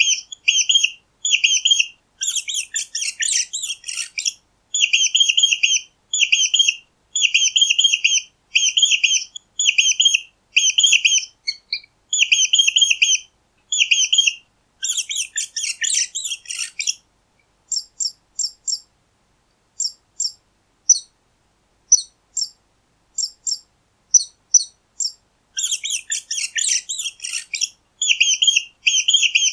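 Mouse squeaking: runs of short, high squeaks at about two a second, broken three times by a denser burst of chittering. A stretch in the middle holds thinner, higher pips.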